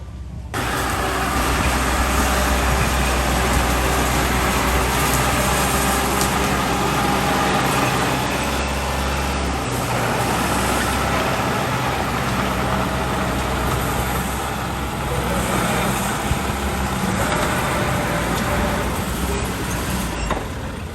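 Heavy diesel earthmoving machinery (a bulldozer or dump truck) with its engine running loud and steady, starting abruptly about half a second in. The engine note shifts in pitch and load a few times.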